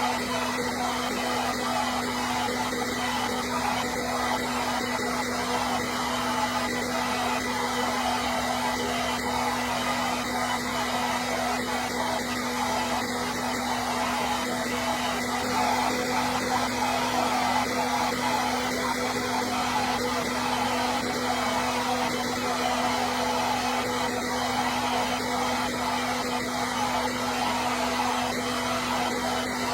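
Hair dryer running steadily: an even, unchanging rush of air with a constant low hum.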